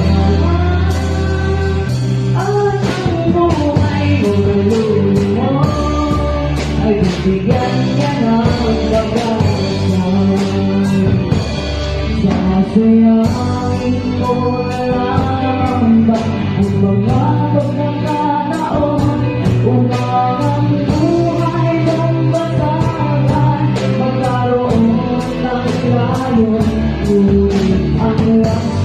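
Live band performing a worship song: a woman singing lead into a microphone, backed by acoustic and electric guitars and a drum kit.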